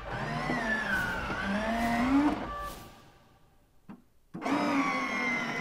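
Electric motor of a life-size Grogu hover pram toy driving its domed lid: a whining run of about two and a half seconds whose pitch wavers and rises near the end, then a click and a second whining run starting about four seconds in. The owner suspects the lid is binding somewhere and can hear the motor struggling.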